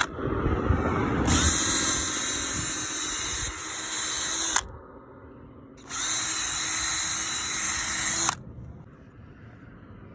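A drill-type power tool motor runs steadily twice: about three seconds, a short pause, then about two and a half seconds more, holding an even pitch with a high whine.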